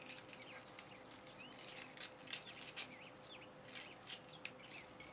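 Dried basil leaves crackling and rustling as fingers strip them off their stems, with a cluster of crisp crunches about two seconds in and a few more around four seconds. Small birds chirp faintly in the background.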